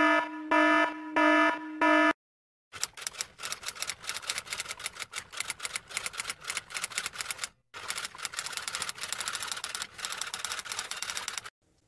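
A buzzer-like tone sounds four times in quick succession. It is followed by a long run of rapid typing clicks in the manner of a typewriter, with one brief pause partway through.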